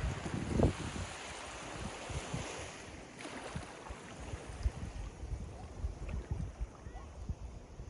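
Surf washing onto a beach, fuller in the first few seconds and then easing, with wind buffeting the microphone in irregular low thumps.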